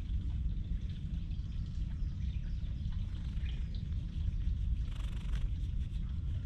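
Domestic cat purring, a steady low rumble, while it is stroked on the head and cheek. Birds chirp faintly in the background, and there is a brief rustle about five seconds in.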